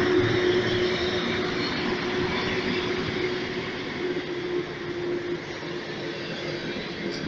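PKP Intercity passenger train hauled by an EP07 electric locomotive, rolling past on the rails with a steady rumble and a constant hum, slowly fading as it moves away.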